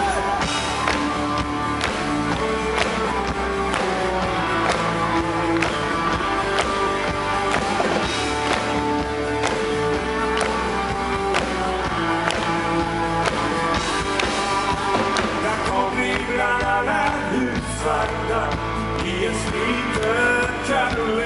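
Live pop-rock band playing a ballad through a large arena's PA, heard from the audience: a steady drum beat under keyboards, guitar and bass. A male lead voice comes in singing near the end.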